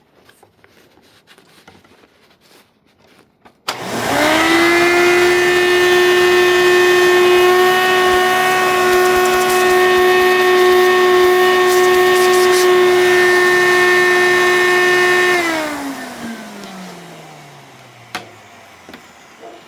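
Hoover Elite II upright vacuum's 6.5-amp motor switched on about four seconds in, running with a steady high whine for about eleven seconds. It is then switched off, spinning down with a falling pitch.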